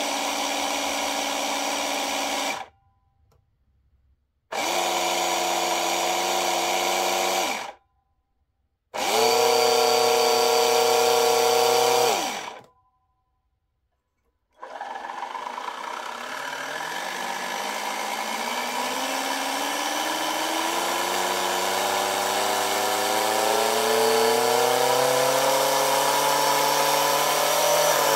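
Automatic soap dispenser's small pump motor whirring in three separate runs of about three seconds each, then running continuously with its pitch rising steadily as the supply voltage is raised far beyond its rating: the pump is being overvolted.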